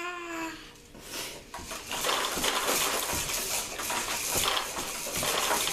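A baby's short, held vocal sound right at the start, then, from about two seconds in, a steady rattling, clattering noise full of small clicks.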